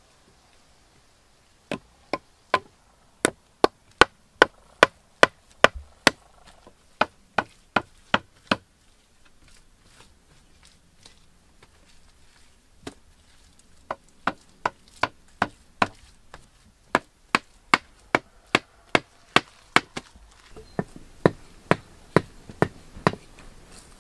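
A blade chopping into wood in steady strokes, about two or three a second, in several runs with pauses between them.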